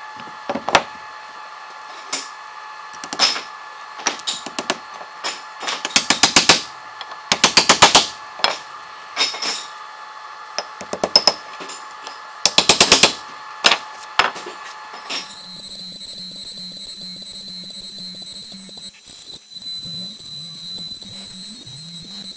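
A hammer tapping wooden wedges to lock an aluminum plate into a plywood fixture, in single strikes and quick runs of taps. About two-thirds of the way through, a ShopBot CNC router's spindle starts with a steady high whine and a lower wavering hum as the end mill cuts the aluminum.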